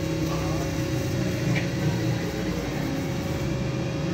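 Steady low background hum, with one faint short tick about a second and a half in.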